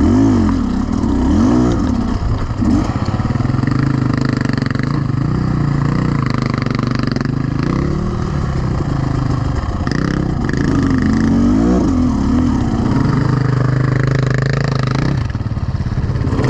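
Beta Xtrainer 300 two-stroke single-cylinder enduro motorcycle engine running under the rider's throttle, its revs rising and falling over and over as the throttle is opened and closed.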